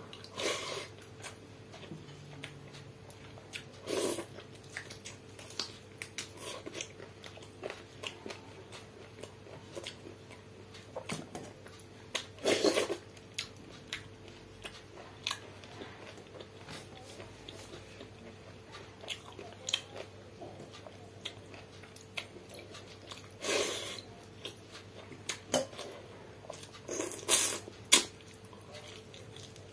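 Close-up eating sounds of a person eating fermented water rice (pakhala) and chicken curry by hand: chewing and biting with wet mouth sounds, and fingers working the rice in a steel bowl. A few louder bites stand out among the small clicks, over a faint steady hum.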